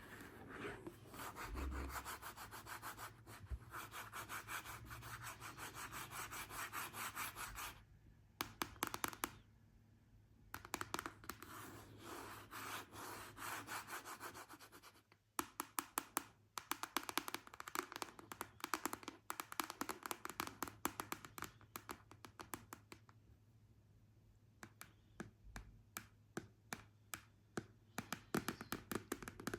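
Long fingernails scratching rapidly over a surface in long stretches, broken now and then by runs of sharp separate nail taps.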